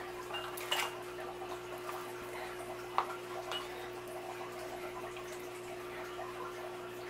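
Thick, wet relish being ladled from an enamelled pot through a plastic canning funnel into glass jars: soft wet plops and drips, with two sharp clinks, about a second in and about three seconds in. A steady hum runs underneath.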